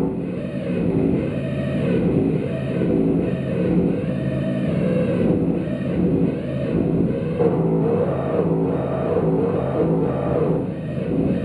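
Live experimental noise music: a dense, distorted electronic drone whose pitch keeps swooping up and down in wavering glides.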